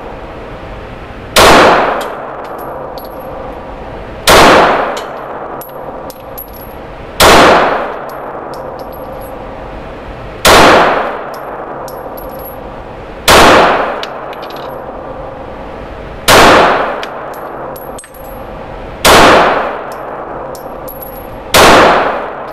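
Glock G19 9mm pistol fired slowly, eight single shots about three seconds apart, each ringing out in the echo of an indoor range.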